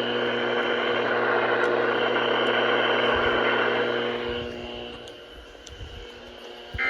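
Weather radio receiver putting out steady static hiss with a low hum, which fades away about four to five seconds in. Right at the end a short high two-tone data burst begins, the first of the EAS end-of-message bursts that close the weekly alarm test.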